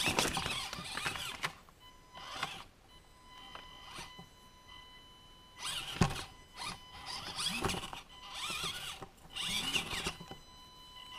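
A small electric RC crawler's motor and gears whine in short spurts, the pitch rising and falling as it drives and climbs. There is a sharp knock about six seconds in.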